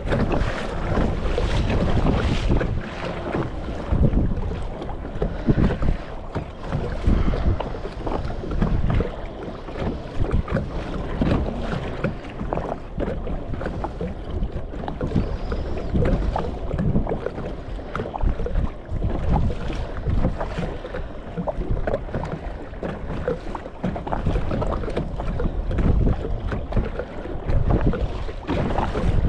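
Water sloshing and splashing around a moving kayak, with wind buffeting the microphone in uneven gusts.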